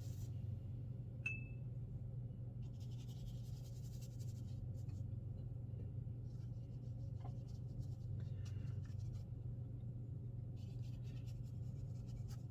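Swirl mop watercolour brush brushing softly across rough watercolour paper in several passes, over a steady low hum. A single short click with a brief high ping about a second in.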